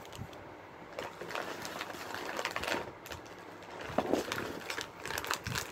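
Plastic snack bag crinkling and rustling as it is handled, in short irregular crackles.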